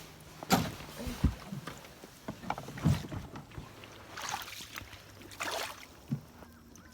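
Irregular knocks and thuds on a wooden canoe as it is handled and gear shifts aboard, the loudest about half a second and three seconds in.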